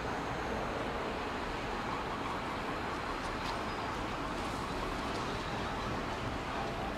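Steady outdoor background noise with no distinct event: an even hum of distant traffic.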